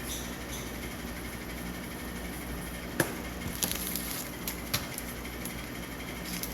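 Light clicks and taps of small parts being handled on a workbench, with one sharp click about three seconds in, over a steady low hum.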